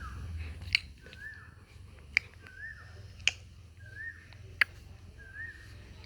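An animal's short call, rising and then falling in pitch, repeated about every second and a half. Four loud, sharp clicks fall in between the calls.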